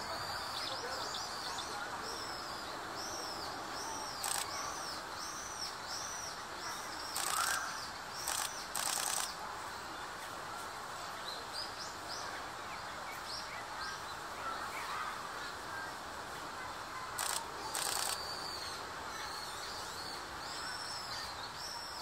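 A small songbird calling over and over in short high chirps that each rise and fall, about two a second. They come thickly in the first few seconds, sparsely in the middle, and thickly again near the end. Several short bursts of camera shutter clicks, the loudest sounds, cut in over a steady background hum.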